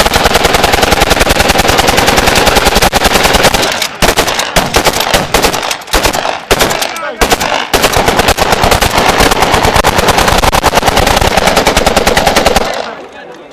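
Automatic gunfire in long rapid bursts with a few short breaks, stopping about a second before the end, followed by a couple of single shots.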